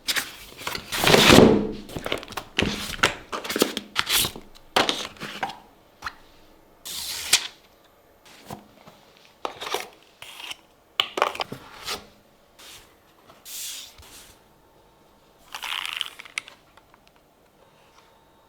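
Keyboard packaging being opened and handled: tearing, rustling, scraping and dull knocks in short irregular bursts, loudest about a second in and sparser toward the end.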